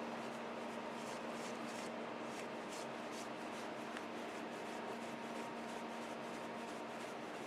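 Takisawa TSL-550 engine lathe running with a steady hum, with a few short brushing or rubbing strokes about one to three seconds in.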